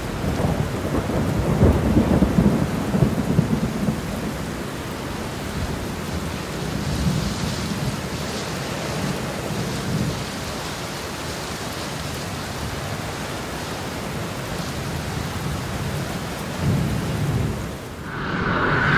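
Wind buffeting the microphone outdoors: a rumbling rush of noise with strong gusts in the first few seconds, then steadier.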